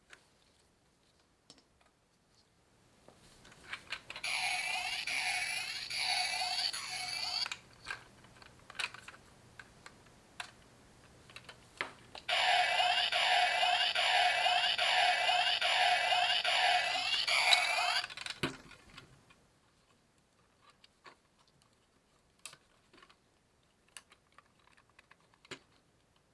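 Kamen Rider OOO DX O Scanner toy playing its electronic sound effects through its small speaker in two bursts, the first about three seconds and the second about six seconds long, each a quickly repeating electronic jingle. Scattered small plastic clicks come before, between and after them.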